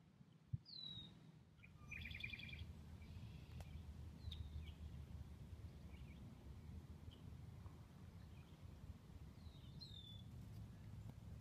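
Quiet marsh ambience: faint bird calls over a steady low rumble, with a short downward-sliding call near the start and again near the end, and a quick rapid trill about two seconds in.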